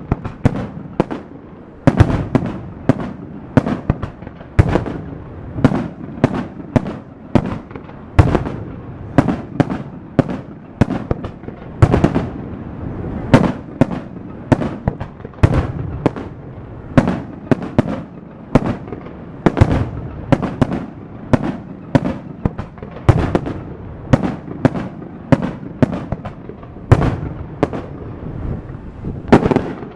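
Daytime fireworks: aerial shells bursting in a rapid, steady run of sharp bangs, about two or three a second.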